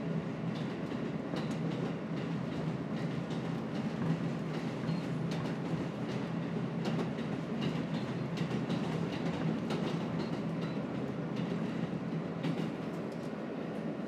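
New York subway train running on elevated track, heard from inside the car: a steady running noise and low hum, with the wheels clicking over the rail joints.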